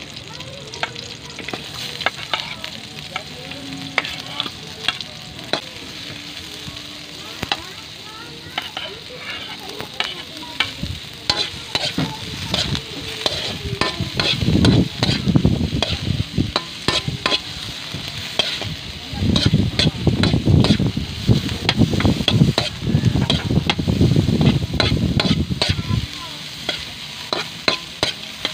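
Garlic, onion and ginger sautéing in a metal wok, with a spatula clicking and scraping against the pan as it stirs. The stirring comes in denser, louder spells from about halfway through, easing off near the end.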